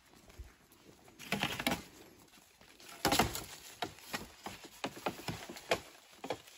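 Rustling and crackling of dry leaf litter and bamboo as a person moves through a bamboo thicket, with two louder rustles about a second in and about three seconds in, then a run of short crackles.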